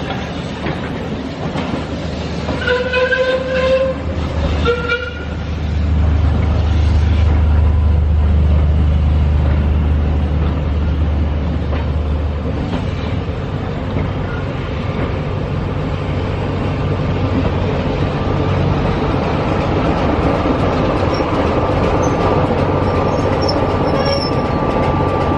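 A train running close by, sounding two blasts on its horn, a longer one and then a short one, a few seconds in. A heavy low rumble of the train running follows, loudest for several seconds and then steadier.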